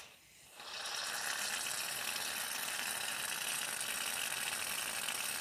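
Aerosol can of shaving cream hissing steadily as foam is sprayed out, starting within the first second.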